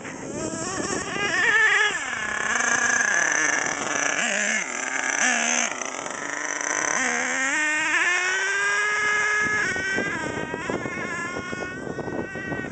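HPI Savage XL nitro monster truck's K5.9 big-block engine running hard as the truck drives, its high-pitched whine rising and falling repeatedly with the throttle. About seven seconds in it winds up in one long rising pull that cuts off suddenly.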